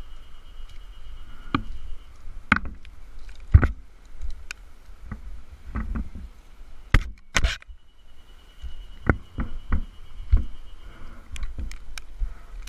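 Irregular knocks and scuffs of a tree climber's boots, gloved hands and rope gear against a pruned Japanese cedar trunk during a roped descent, with a burst of closely spaced knocks a little past the middle.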